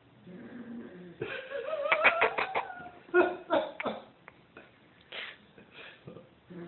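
A sleeping Great Dane puppy's soft snore, then about three seconds of louder, high squeaky sounds climbing in pitch with sharp clicks among them, trailing off into scattered short clicks and snuffles.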